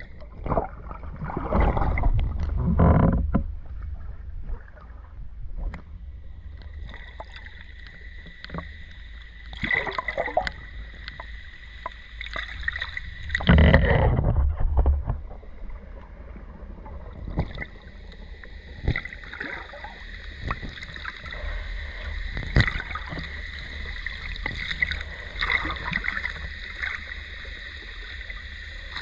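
Mountain stream water running and sloshing close by, with louder surges of splashing about a second in and again about halfway through.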